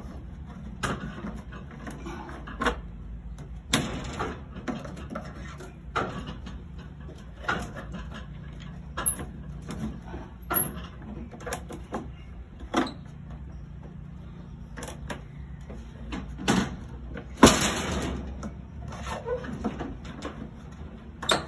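Metal work on a ride seat's lock: irregular sharp scraping and knocking strokes of a hand tool on metal, about one every second or two, the loudest about 17 seconds in, over a steady low hum.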